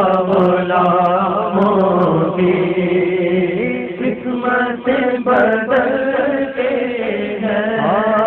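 Male voices singing an Urdu naat: a steady held low drone beneath a wavering sung line between verses.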